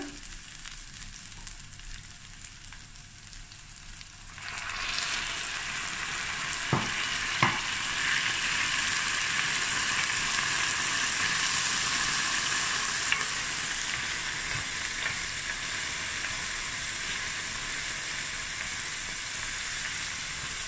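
Diced onions and whole spices frying in oil in a stainless steel pan, at first with a soft sizzle. About four seconds in, a splash of water hits the hot oil and the sizzle jumps to a loud, steady hiss. Two light knocks of the wooden spoon against the pan follow soon after.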